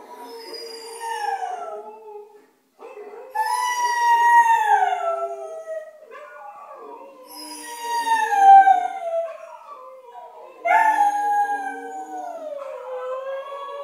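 Huskies howling: a pet husky howls along with howling played from a video. There are four long howls, each sliding down in pitch, with a second, steadier voice overlapping beneath them.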